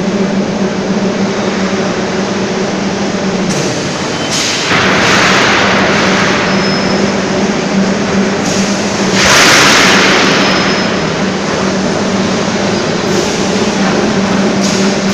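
Heavy steel-coil cut-to-length line running: a steady machine hum over a dense mechanical din. It rises into two louder hissing surges, about five and nine seconds in.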